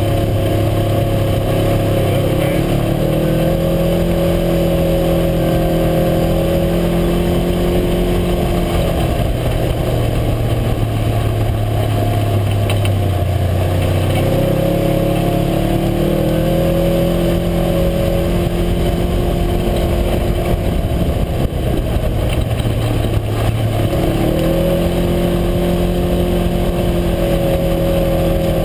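UTV engine running under way, its pitch climbing and then holding three times as the throttle is opened, over a steady rush of noise.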